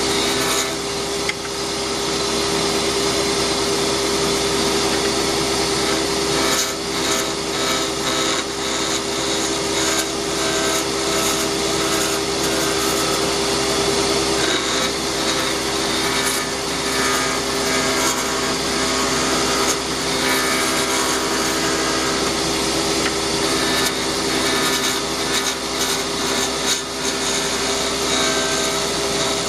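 Delta wood lathe running with a steady motor hum while a tool works against the spinning wood pen blank, giving an uneven scraping noise.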